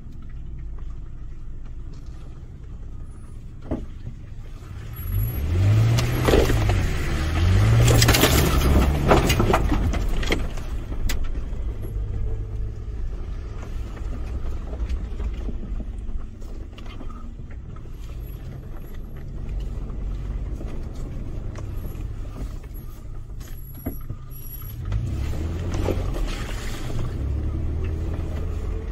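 Toyota FJ Cruiser's 4.0-litre V6 engine pulling the truck slowly along a rough dirt track. The revs rise and fall twice about five to ten seconds in, with a loud rush of noise from the tyres working through mud and ruts. The revs rise and fall again near the end.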